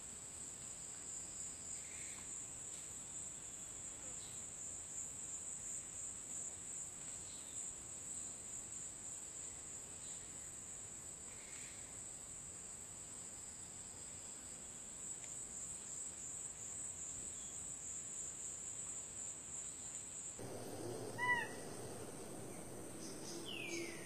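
Steady high-pitched drone of insects, with faint bird calls now and then. About 20 seconds in the drone cuts off, and a bird gives a short burst of sharp chirps, the loudest sound here, followed near the end by a falling call.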